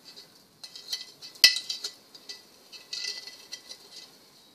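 Spoon clinking against a container while scooping sugar: several light ringing clinks, the loudest about a second and a half in, and a short scrape around three seconds in.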